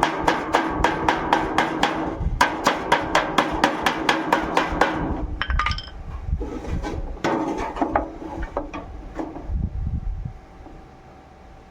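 Rapid hammer taps, about four a second, for the first few seconds with a brief pause. Slower, irregular knocks follow, then the sound drops away near the end.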